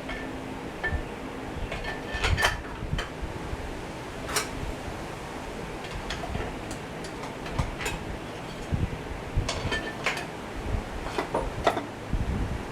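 Scattered metallic clinks and knocks as a steel flywheel is worked loose from the crankshaft of a Chevy 216 straight-six, under a faint steady hum.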